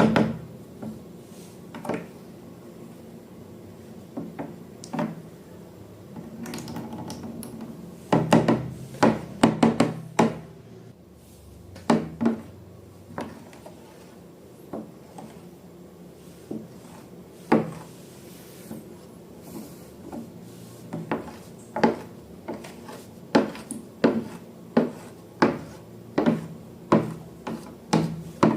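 A hard utensil knocking and tapping against a container in a run of sharp taps, with a stretch of softer rubbing about six seconds in. The taps are scattered at first, cluster around ten seconds in, and in the last third come regularly, about one and a half a second.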